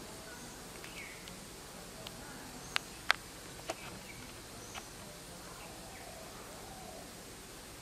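Rural outdoor ambience with faint, repeated bird chirps and a few sharp clicks, the loudest pair about three seconds in.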